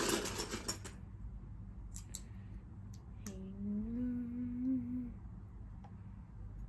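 Lego bricks clattering and clicking as they are handled and pressed together, with a loud rattle at the start and a few sharp clicks after. A child hums one steady low note for about two seconds near the middle.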